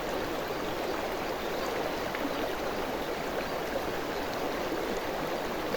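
River water flowing steadily over rocks, a constant rushing with faint bubbling.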